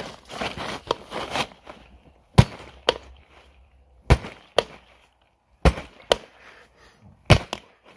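Tire hammer being driven down onto a motorcycle tire's sidewall at the rim to break the bead loose. There are four loud strikes in pairs, about one pair every second and a half.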